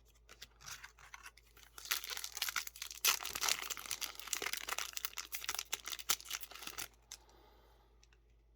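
Foil booster-pack wrapper being torn open and crinkled: a dense crackling rustle that starts about two seconds in and stops about seven seconds in.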